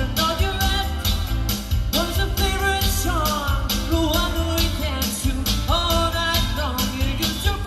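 A Motown song plays loudly, with voices singing over a band track that has a steady, even beat.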